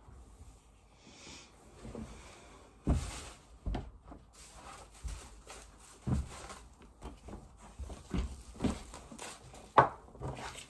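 Footsteps across a room and objects being picked up, carried and set down: a string of irregular soft thumps and knocks, the sharpest one near the end.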